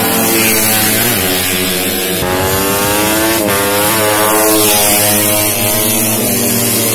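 Racing motorcycle engines running hard as a bike passes close by: the pitch climbs from about two seconds in, drops suddenly about a second and a half later, then climbs again, over the steady note of other engines.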